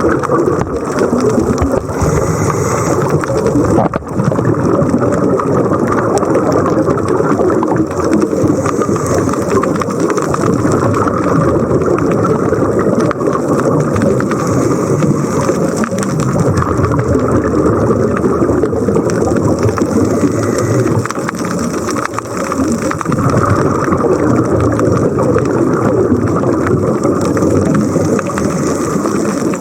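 Steady, loud rushing water noise with no clear rhythm or pitch.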